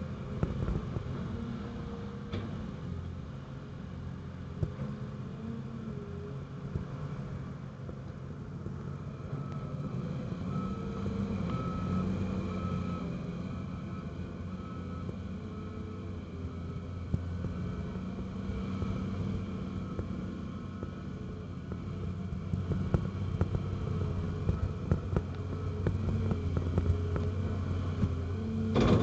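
Cat 330CL excavator's diesel engine running steadily, its pitch and loudness rising and falling as the machine works, with a run of sharp knocks in the last several seconds.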